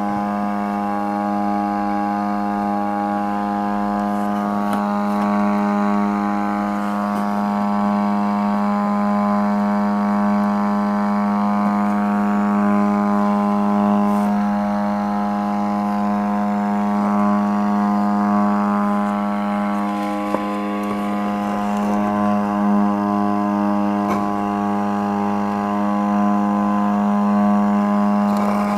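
Loud, steady hum-buzz from a faulty Digital TS-60 PA amplifier, powered up with its board exposed, with a few faint clicks from handling. The repairer traces the fault to a damaged 16 V 220 µF capacitor.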